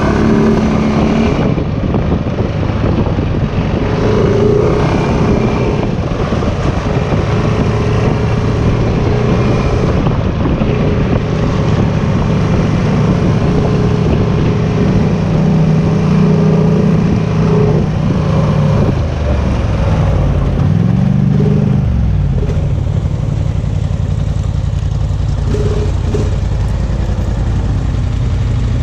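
Off-road vehicle engine running steadily under way, its revs dropping and then climbing again about two-thirds of the way through.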